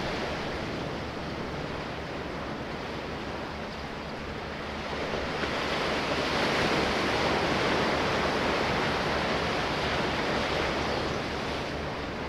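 Sea waves washing in, a steady rush in which one wave swells about five seconds in and eases off near the end.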